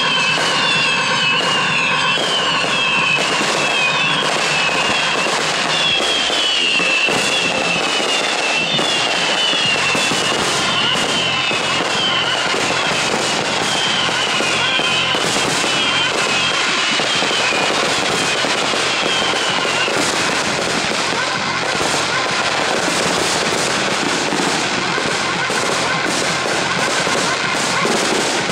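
Fireworks display: aerial shells bursting and crackling continuously. A rapid string of high chirping whistles runs through it and stops about twenty seconds in.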